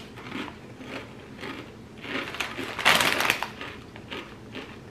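Someone chewing a mouthful of crisp ridged potato chips: irregular crunches, densest around three seconds in.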